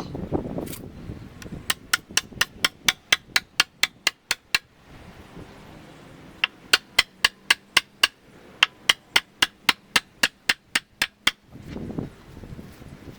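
Quick, evenly spaced hammer blows, about four a second, in three runs with short pauses between them.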